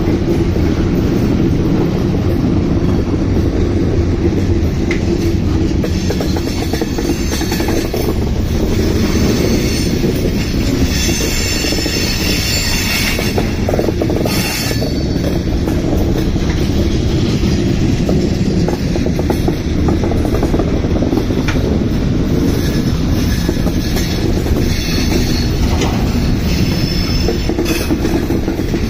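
Freight train cars rolling past with a steady heavy rumble, the wheels squealing high on the rails at times, most clearly a third of the way in and again near the end.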